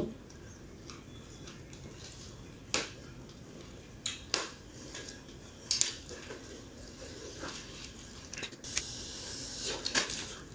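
Raw young mango leaves being torn and folded by hand, crinkling, with several sharp snaps of leaf and stem over the first six seconds and a steady crinkly rustle near the end.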